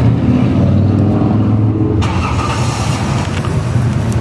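A car engine running close by, with a rushing noise joining in about halfway through.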